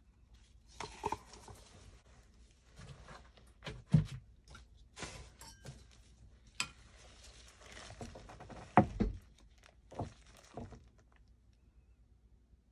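Scattered knocks and rustles of hands handling resin tools on a plastic-covered work surface: a plastic mixing cup and wooden stir stick set down and a spatula picked up, with two louder thunks about 4 and 9 seconds in. The handling stops about a second before the end.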